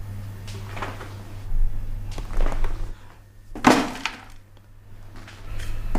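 A handful of light knocks and taps, as of small objects such as potted plants being handled and set down on a desk, the loudest a little past halfway, over a steady low electrical hum.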